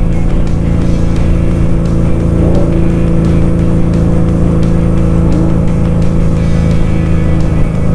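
Motorcycle engine running at a steady, unchanging pitch under heavy wind noise on the rider's microphone; the steady tone cuts off near the end.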